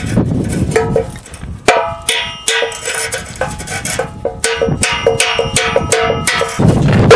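Hammer blows on a small sheet-metal plate held against the outlet pipe of a rusted car rear muffler, shaping a makeshift exhaust clamp. The ringing metallic strikes come about three a second, starting about two seconds in and stopping shortly before the end. Wind rumbles on the microphone before and after.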